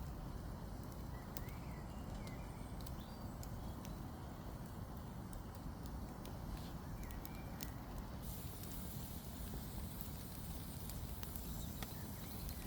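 Small wood-burning camp stove fire crackling, with scattered sharp pops over a steady low rumble, as sticks burn in a bush-box style stove. A few faint bird chirps come through in the first half.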